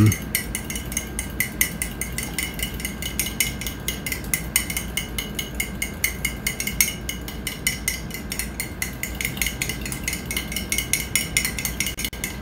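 Metal spoon clinking quickly and repeatedly against the inside of a ceramic mug while stirring egg yolks and sugar together.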